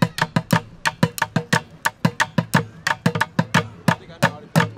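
Bucket drumming: drumsticks beating a fast, even groove on upturned plastic paint buckets, about six strokes a second, deep bass hits mixed with sharper snare hits, closing on one hard strike.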